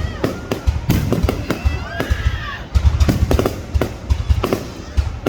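Fireworks going off in a rapid, irregular string of bangs and cracks, several a second.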